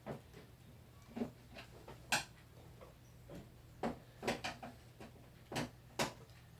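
Scattered sharp clicks and light knocks of hands and tools working on the plastic casing of an electronic keyboard being taken apart. About eight irregular taps sound over a low, steady hum.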